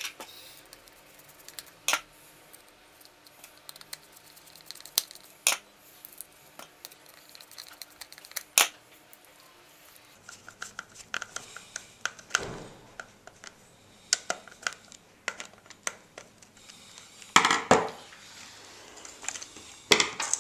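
Small screws being driven into an RC car's plastic chassis to fix the central transmission back in place: scattered sharp clicks and ticks of a screwdriver and parts, with a few short scraping rattles.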